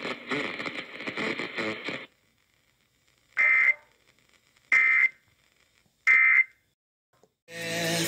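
A voice on an FM radio finishes reading a tornado warning. After a short pause come three identical short screechy data bursts about 1.3 s apart: the Emergency Alert System end-of-message (EOM) signal that closes the alert. A brief buzzing burst follows near the end.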